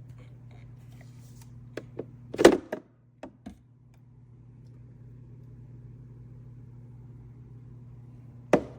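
COWSAR countertop nugget ice maker running with a steady low hum. A few clicks and a loud knock come about two seconds in, the hum cuts out for a moment, then it builds back up and runs steadily again. One more click comes near the end.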